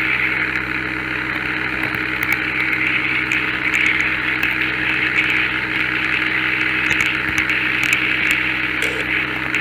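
Model train running steadily on layout track: a constant electric motor hum and wheel-on-rail rolling noise, with scattered light clicks.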